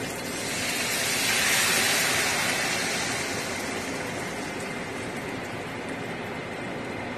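Sauce poured into a hot wok, rising to a loud sizzle about a second or two in, then easing to a steady sizzle.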